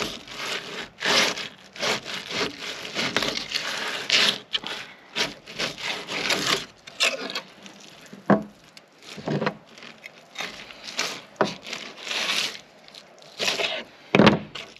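Fillet knife sawing between a fish fillet's tough skin and its meat against a plastic cutting board, a run of irregular rasping strokes as the skin is cut away.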